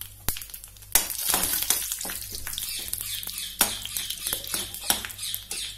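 Whole spices (cumin seeds, bay leaf, green cardamom and dried red chillies) sizzling in hot ghee in a metal kadai as a slotted metal spoon stirs them. The sizzle starts suddenly about a second in and goes on as a steady hiss with small crackles.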